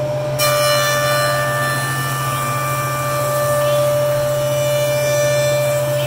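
Powermatic 54HH 6-inch jointer running with a steady hum. About half a second in, its helical cutterhead starts cutting a rough-sawn board fed edge-down along the fence, and the knives cut continuously from then on. The infeed table is set for a 1/16-inch cut.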